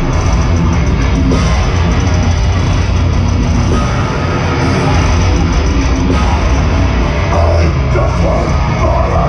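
Live heavy metal band playing loud through a festival PA, heard from within the crowd: electric guitars and a drum kit with heavy bass.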